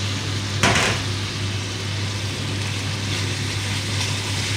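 Chicken pieces frying in a pot with a steady sizzling hiss, over a steady low hum. There is a single sharp knock a little under a second in.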